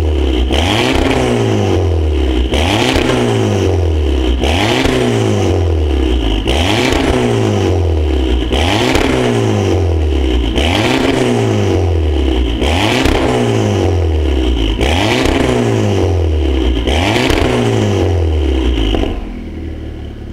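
Audi TT 8J's 2.0 TFSI turbocharged four-cylinder free-revved through an Armytrix valve-controlled exhaust, about one rev every two seconds, each rising quickly and falling back. Near the end the revving stops and it settles to a quieter idle.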